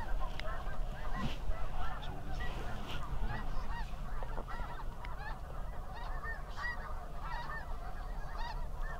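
A flock of snow geese calling: many short, high honks overlapping with one another, over a low wind rumble on the microphone.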